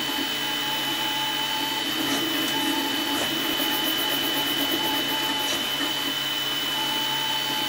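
Artillery X3 Plus bed-slinger 3D printer running a fast print: a steady high whine with a lower motor tone that starts and stops in stretches as the print head and bed make their quick moves.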